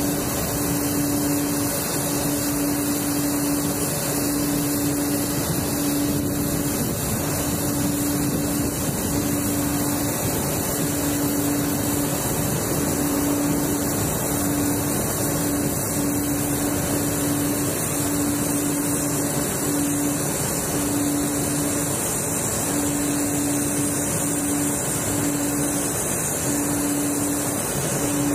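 Jet engines of heavy Air Force tankers, among them a taxiing KC-10 Extender, running steadily at taxi power. They make an even rushing noise, with a low hum that keeps breaking off and coming back.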